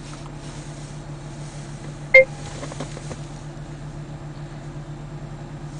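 A single short electronic beep about two seconds in, over a steady low hum in the car's cabin, followed by a few faint taps.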